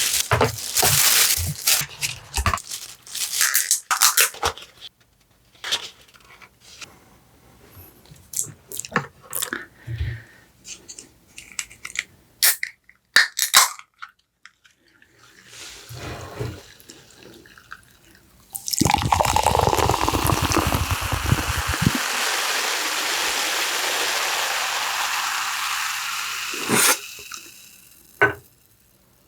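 Scattered clicks, taps and rustles of food containers and utensils being handled. About 19 seconds in, liquid is poured steadily for about eight seconds.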